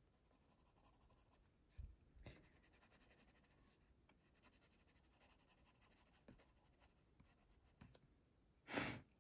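Faint scratching of a Faber-Castell Polychromos colored pencil shading on paper, in short quick strokes. A brief louder sound comes near the end.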